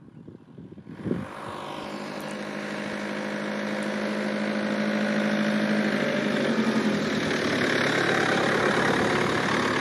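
A car driving up and drawing near: engine and tyre noise that cut in abruptly about a second in and grow steadily louder as it approaches.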